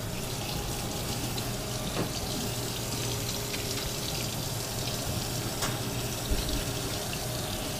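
Kitchen tap running steadily into the sink, switched on abruptly at the start, with a few faint knocks.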